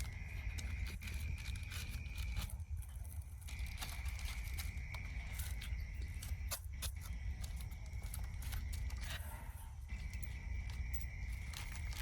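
Outdoor ambience: a low rumble, a steady high-pitched whine that breaks off twice, and scattered faint clicks and taps.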